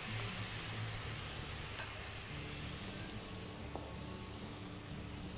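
Chicken breasts frying in oil in a pan with a steady sizzle. A faint low hum joins about two seconds in.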